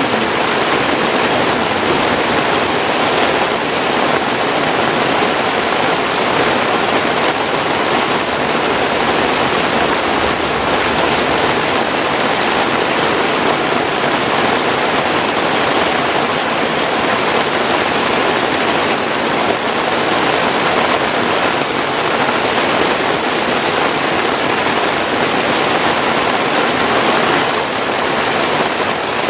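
Heavy rain pouring steadily on a makeshift forest hut shelter and the jungle around it, a dense unbroken rushing.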